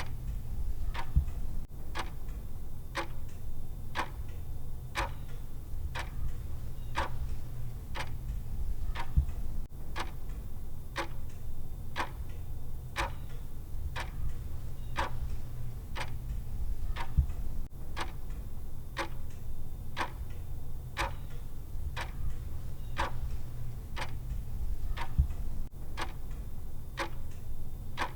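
Clock-style ticking sound effect, even and steady, over a low steady hum.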